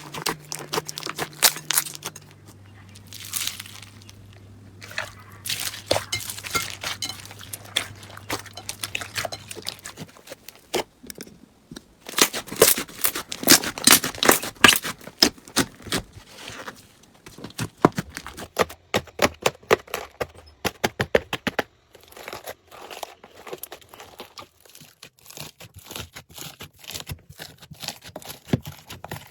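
Slime being squeezed and worked by hand, giving dense runs of crackling clicks and pops that are busiest about halfway through.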